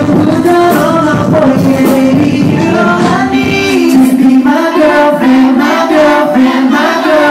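Live hip-hop/R&B performance over a loud club sound system: a man sings into a microphone over a backing track. The deep bass drops out about four seconds in, leaving the vocal melody over a lighter beat.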